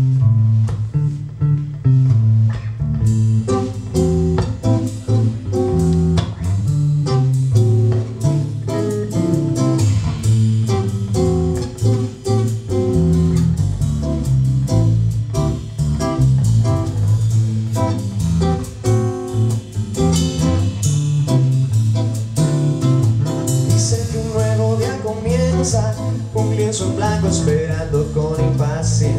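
Small band playing live on acoustic guitars, bass guitar and drums with cymbals. A man's voice starts singing near the end.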